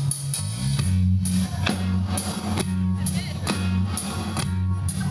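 Live country band playing an instrumental passage: guitars and a bass line over a drum kit keeping a steady beat of about two hits a second.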